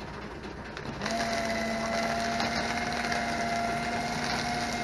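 Small electric paper shredder starting up about a second in and running with a steady hum as it cuts up a sheet of paper.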